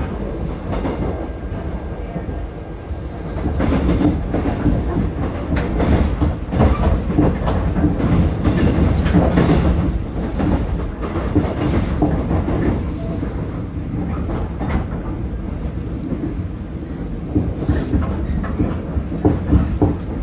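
Korail 311000-series electric multiple unit, a Toshiba GTO-VVVF train, running, heard from inside the passenger car: a steady low rumble with irregular knocks from the wheels on the track. It gets louder for several seconds from about four seconds in.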